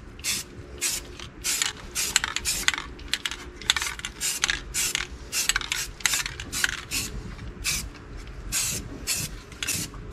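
Aerosol spray can of black primer hissing in short repeated bursts, about two or three a second.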